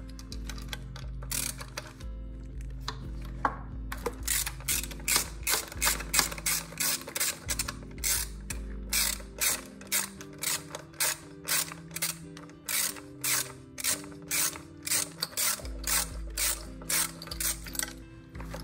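Small hand ratchet wrench clicking in a regular run of strokes, about two to three clicks a second from about four seconds in, as it works the phase-wire terminal bolts on an electric dirt bike's motor controller. Background music with held bass notes plays throughout.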